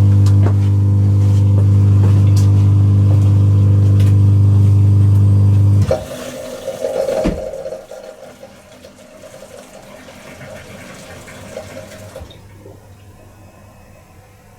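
Pro Action PRSLG96W slimline dishwasher's pump running with a loud steady hum that cuts off abruptly about six seconds in. Water swishes through the machine with a click, then a softer hiss of water carries on and stops a few seconds later, as the wash program works through its start.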